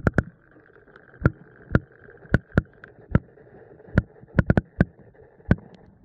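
Clear stream recorded underwater: a faint steady rush broken by about a dozen sharp, irregular clicks and knocks.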